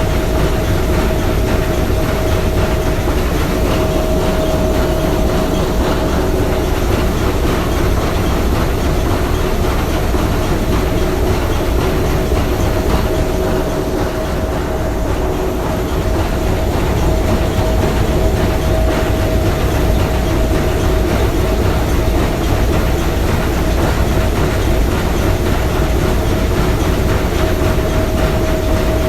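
Three-cylinder triple-expansion marine steam engine running steadily: continuous mechanical noise, heavy in the low end, with a steady tone running through it.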